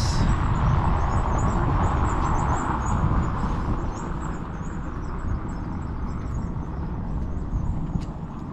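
Outdoor street ambience on a city square: a steady rumble of traffic and wind noise. It is louder in the first few seconds and eases off after about four seconds.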